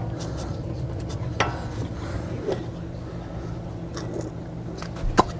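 Faint metal clicks and scrapes as a Ford F350's front wheel hub assembly is worked onto the axle, ending in a couple of sharp metallic clacks about five seconds in as it seats. A steady low hum runs underneath.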